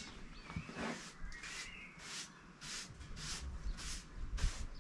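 A hand rubbing back and forth over the rough-sawn face of a freshly cut larch board, in short scraping strokes about two a second.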